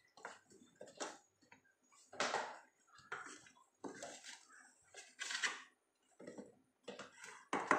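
A utensil scraping and knocking on a plate in a series of short, irregular strokes as warm peanut-jaggery chikki mixture is pressed flat and levelled.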